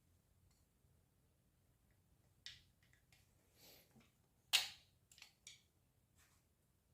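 A few faint, sharp clicks and taps of small parts being handled while a floor fan's oscillation gearbox is worked on, the loudest about four and a half seconds in.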